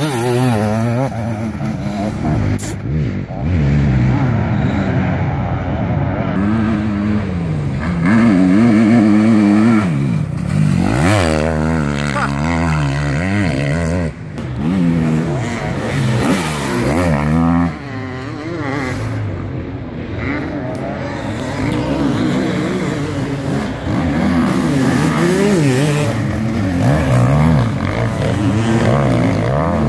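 Enduro motorcycle engines revving hard on a dirt course, their pitch rising and falling again and again as the bikes accelerate, shift and back off through the corners.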